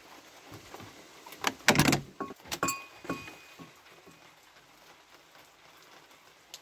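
An old wooden door being worked open: a burst of rattling and knocks at its latch about a second and a half in, with a brief metallic ringing, then the door swings free.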